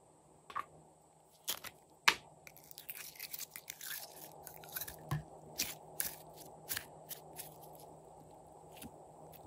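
Glossy slime being pulled, stretched and folded by hand: sticky clicks and small pops, scattered, coming thickest in the middle and thinning out near the end.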